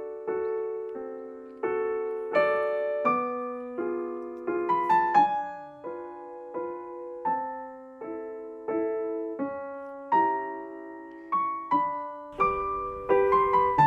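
Background music: a gentle, slow piano melody of single notes and chords, each struck and left to fade.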